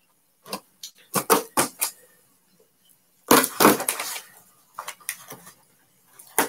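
Small cardboard box being torn open by hand: short sharp crackles and rips of cardboard and tape, with one louder, longer rip about three seconds in.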